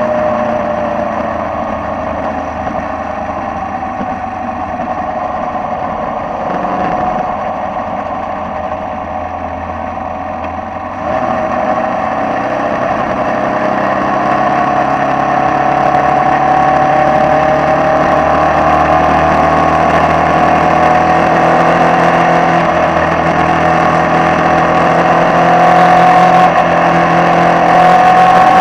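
Formula Vee racing car's air-cooled Volkswagen flat-four engine heard from the cockpit at racing speed, with wind rushing past. The note runs steady and somewhat quieter at first, turns suddenly louder about eleven seconds in, then climbs slowly in pitch.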